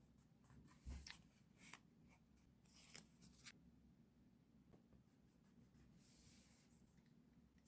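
Faint stationery handling on a diary: a few light clicks and taps, a scratchy rustle of paper about three seconds in, and a soft sliding rustle a little after six seconds.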